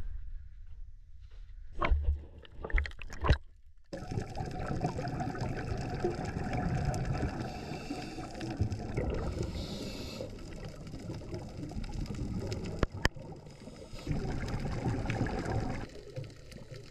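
Underwater sound on a scuba dive: a steady, muffled rush of water with the gurgle of the divers' regulator exhaust bubbles. Before it, a few dull thumps about two and three seconds in.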